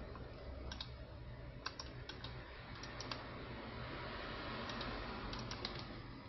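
About a dozen light, irregular clicks over a steady low hum.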